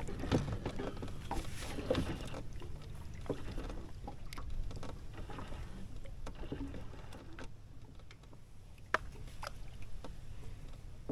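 Steady low rumble of wind on the microphone, with scattered handling noises and a few sharp clicks as fishing tackle and a spinning rod and reel are handled in the boat.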